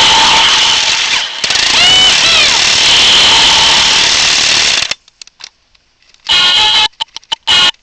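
Electronic jet-engine sound effect from a Toy State Freedom Force toy fighter jet's small speaker, loud and harsh, with a few quick rise-and-fall zaps about two seconds in. It stops about five seconds in, then comes back in short choppy bursts that cut in and out.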